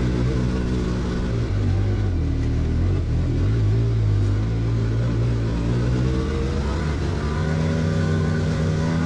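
A motor vehicle's engine running steadily under way, its pitch shifting up about six seconds in.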